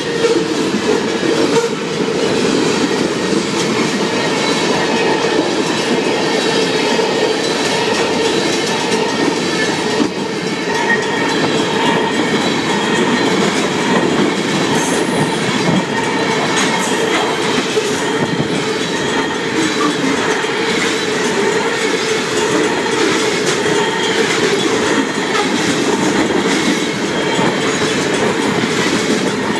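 Union Pacific mixed freight train's cars rolling steadily past: wheels clattering over the rail joints, with some squeal from the wheels.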